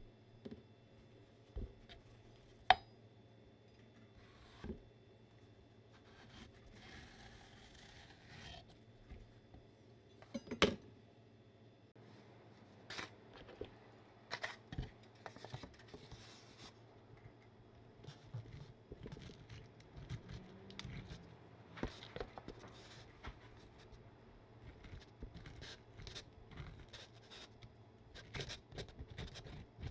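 A knife cutting a white melon (shirouri) on a wooden cutting board, with a few sharp knocks of the blade on the board, the loudest about ten seconds in. From about two-thirds of the way through, soft repeated scraping and small clicks as the seeds are scraped out of the halved melon.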